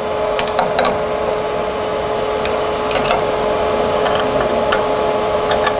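Spanners clinking on the CNC router spindle's collet nut as the end mill is tightened in: a few short metal ticks. A steady machine hum runs underneath and is the louder sound.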